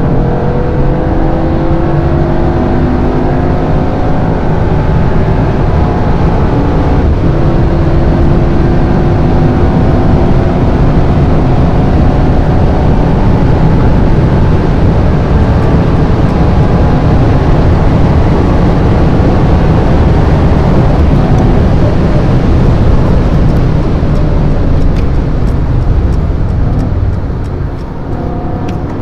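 The 4.0-litre twin-turbo V8 of a 2021 Mercedes-AMG E63 S pulling hard at speed. Its pitch climbs steadily over the first several seconds, with a gear change about seven seconds in, then a dense rumble with heavy road and wind noise; the sound drops off near the end.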